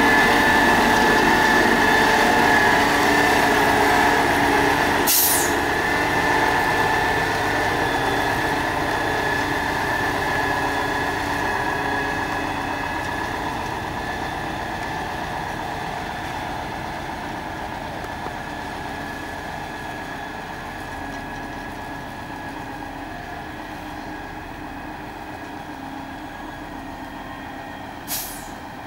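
Mitsubishi Fuso concrete mixer truck's diesel engine running, with a steady high whine over it, growing steadily fainter. A short hiss sounds near the end.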